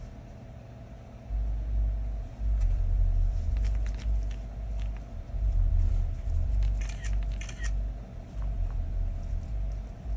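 Uneven low rumbling and rubbing as a phone is pressed and worked by hand on a work mat, over a faint steady hum. A few light clicks come about seven seconds in.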